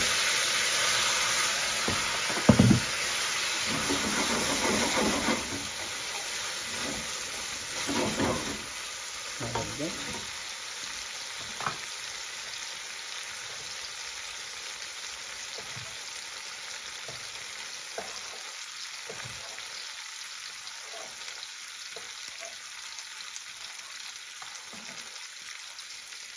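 Hot water hitting a hot pan of frying tomato paste and spices: a loud sizzle that eases after about five seconds into a steady, quieter sizzle as the sauce simmers. A few knocks of a spoon against the pan come in the first dozen seconds.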